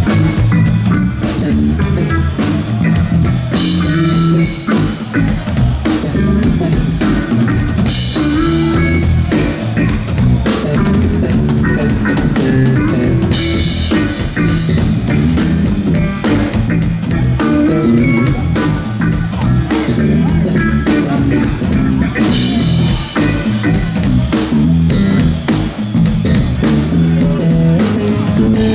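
Live funk band playing a groove through the stage PA during a soundcheck, with drum kit and guitar prominent over a steady, loud rhythm.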